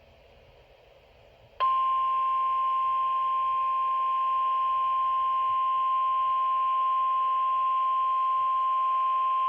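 NOAA Weather Radio warning alarm tone, a single steady 1050 Hz beep, switching on sharply about one and a half seconds in and holding without change over faint radio hiss. It signals that a weather warning, here a severe thunderstorm warning, is about to be read.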